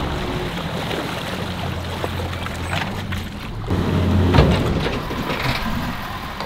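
Bass boat's outboard motor running as the boat is driven up onto its trailer at the ramp, swelling louder about four seconds in.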